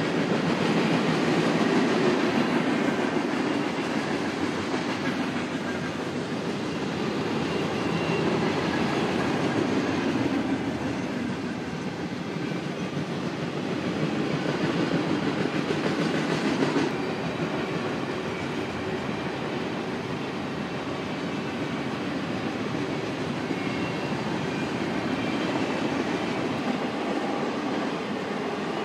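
Freight train of mostly empty flatcars rolling past, its wheels rumbling steadily on the rails with a swell and ease in level every few seconds.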